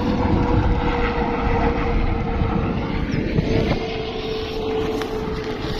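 A steady motor hum holding one even tone, under rumbling wind noise on the microphone.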